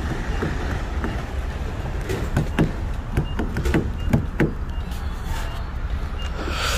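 Steady low rumble of a vehicle engine running, with scattered clicks and knocks and a short rushing noise near the end.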